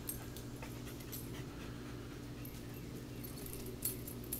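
A small dog panting faintly and scuffling as it jumps at a bungee-cord tug toy, with a few light taps, over a steady low hum.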